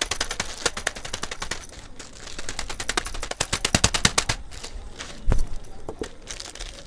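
Dry Maggi instant noodle blocks crackling and crunching inside their plastic packets as a wooden rolling pin is pressed and rolled over them, a rapid run of sharp cracks. One louder knock about five seconds in.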